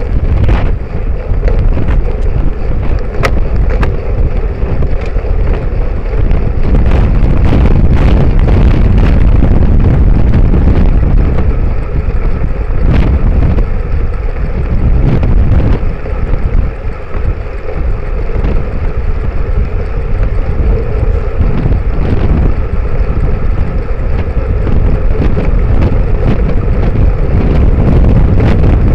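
Wind buffeting the microphone of a Cycliq camera on a road bike riding at speed, over a steady rumble of tyres on the road. A few short clicks come through now and then.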